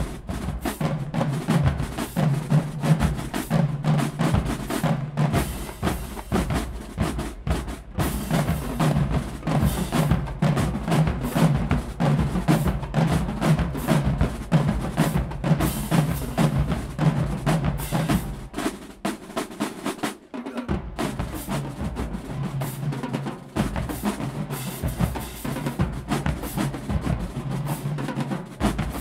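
College marching band drumline playing a cadence, with snare drums, tenor drums, bass drums and cymbals. The drumming dips briefly about two-thirds of the way in, then picks up again.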